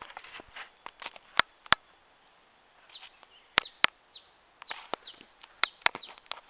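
Quiet outdoor ambience of irregular sharp clicks and ticks, a few loud ones in quick pairs, with faint short bird chirps between them.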